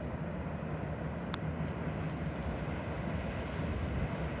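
Distant freight train hauled by an EH200 electric locomotive, a steady low rumble that grows slightly louder as it approaches, with one brief sharp high sound about a second in.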